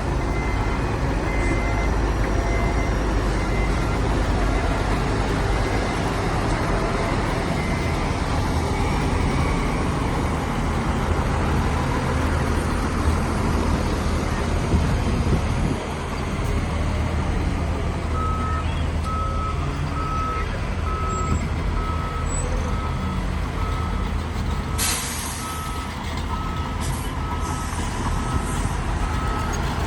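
Heavy diesel earthmoving machinery running steadily, with a reversing alarm beeping evenly through the last third and a short hiss near the end.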